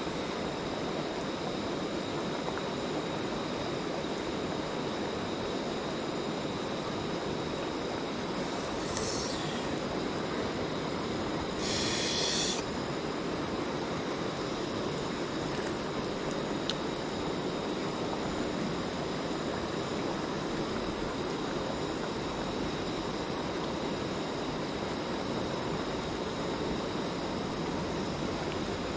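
Steady rushing of a mountain stream, with faint steady high tones over it and two brief hissy sounds about a third of the way in.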